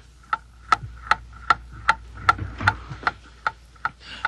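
Clock-style ticking of a time bomb: sharp, even ticks about two and a half times a second.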